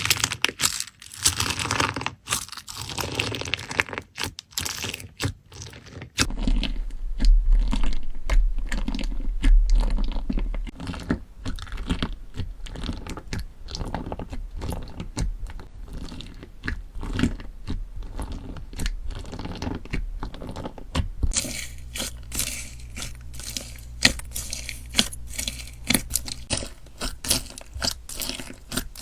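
Slime being squeezed, poked and stretched by hand, making a dense stream of crackling, popping clicks.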